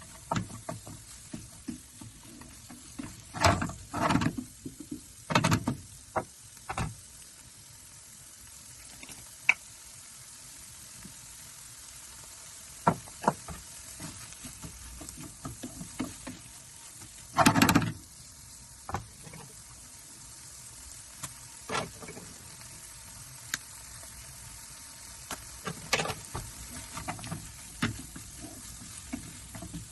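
Food sizzling steadily in a frying pan, with scattered knocks and scrapes of a utensil stirring against the pan and one longer, louder scrape about halfway through.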